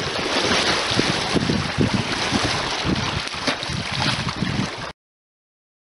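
Wind buffeting the microphone over choppy lake water, a steady rushing noise with repeated low gusty thumps, cutting off abruptly about five seconds in.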